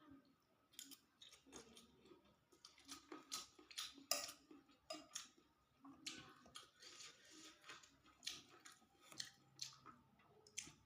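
Quiet chewing of a mouthful of fried rice vermicelli and tofu, heard as a string of irregular short clicks and wet mouth noises.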